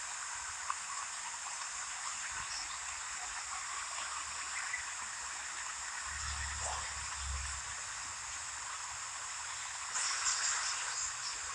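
Steady outdoor background hiss with a few faint high chirps, and a brief low rumble about six seconds in.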